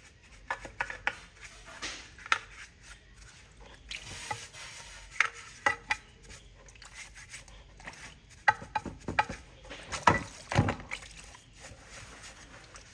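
Brush and scouring pad scrubbing a cast-aluminium motorcycle engine crankcase half in a plastic tub of soapy water, with water sloshing and scattered sharp clicks and knocks as the case is worked.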